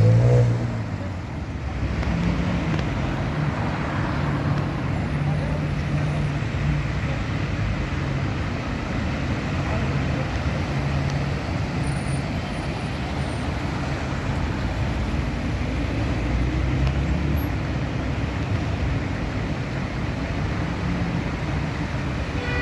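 Steady city traffic on a busy roundabout: car engines humming and tyres on asphalt as vehicles pass continuously, louder in the first second as one passes close.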